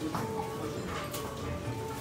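Background music of held, steady notes.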